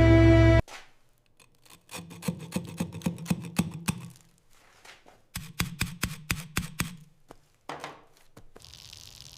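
Background music cuts off just after the start. Then come two runs of quick scraping strokes of a hand tool on wood, about five a second, each run lasting about two seconds, followed by a faint steady hiss.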